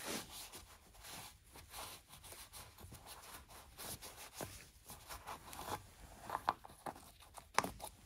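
A gloved hand wiping the plastic hydraulic fluid reservoir of a car lift's power unit with a rag: a quick, irregular run of rubbing and scuffing strokes, with a few sharper clicks and knocks near the end.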